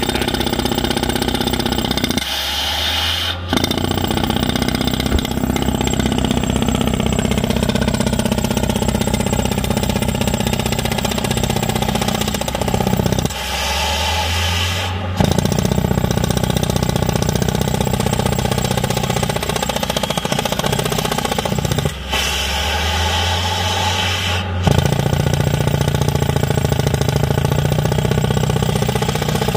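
Tracked drilling rig's drill boring a pilot hole for a ground screw through rocky clay, with a rapid pounding over the steady run of the rig's engine. The pounding stops briefly three times while the engine keeps running.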